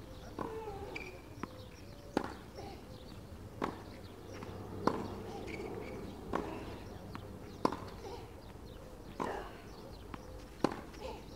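Tennis rally: a racket strikes the ball about every second and a half, seven hits in a row, with fainter clicks of the ball bouncing on the court in between.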